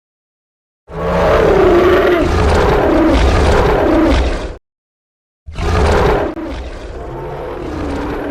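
Dinosaur roar sound effect for a Spinosaurus: one long roar of about four seconds, then after a short silence a second roar that drops to a quieter, continuing growl after about a second.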